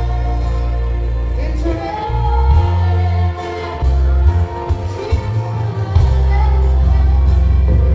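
Live worship band playing with singing: held bass notes and keys beneath a sung melody.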